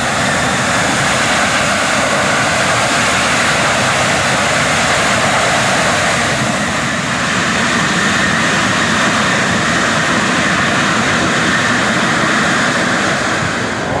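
Jet engines of a U.S. Air Force C-17 Globemaster III running as it taxis, making a steady, loud rushing jet noise.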